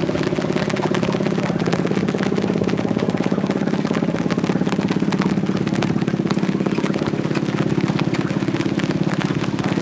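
Engine running steadily, with a fast, even pulsing throughout.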